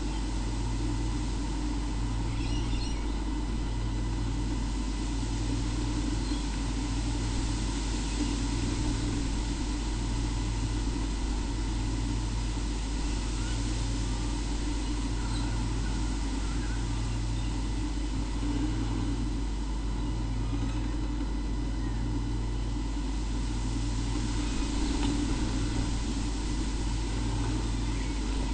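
A steady low hum and hiss, with a low tone pulsing on and off about once a second.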